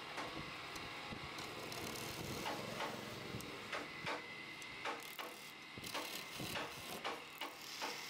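Wood lathe running with a steady hum while a hand tool scrapes the spinning wooden chair leg in irregular short strokes, more of them in the second half.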